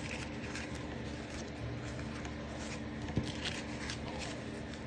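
Faint rustling of paper and lace craft tags being handled, with a light tap about three seconds in, over a steady low hum.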